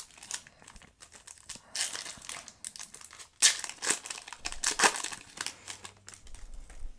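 Foil Yu-Gi-Oh! booster pack wrapper crinkling in the hands and being torn open. The loudest crinkles and rips come about halfway through.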